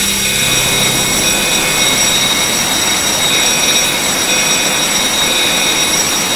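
A loud, steady rushing noise like a strong jet of gas or air, with a few faint high tones held steadily over it.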